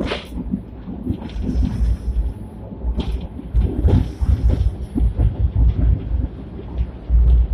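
A sixth-generation wooden-bodied Hong Kong double-decker tram running along its track, heard from inside the lower deck: a loud, uneven low rumble with a few sharp knocks and rattles.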